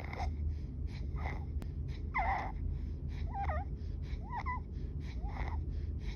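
Rapid, laboured breathing of a patient in respiratory distress, about one breath a second. Each breath is a harsh, noisy sound, several with a high-pitched wavering tone: stridor, the sign of a narrowed upper airway.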